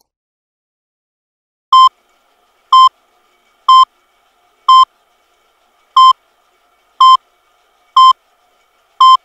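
A loud electronic beep, one short tone repeated about once a second, eight times, starting about two seconds in.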